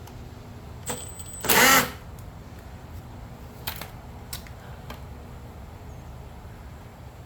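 Tools and parts being handled during work on a lawn mower: a click about a second in, a short loud burst of noise just after it, then a few light clicks.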